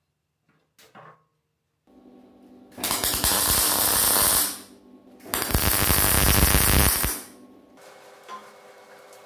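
Electric arc welding, two tack welds joining a steel flange to the gasifier's sheet-steel body: two crackling, hissing arc bursts of about a second and a half each, a short gap between them. A low steady hum sounds before, between and after the welds.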